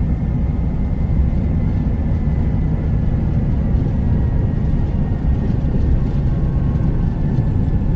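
Cab noise of a Kenworth T360 concrete mixer truck on the move: a steady low diesel engine rumble mixed with road noise, heard from inside the cab.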